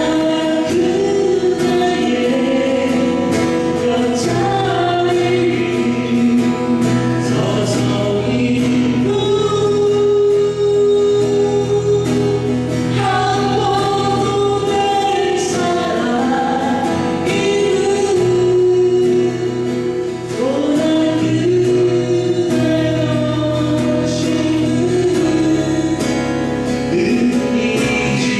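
A group of voices singing a song in harmony, holding long notes that move between chords over a steady low bass part.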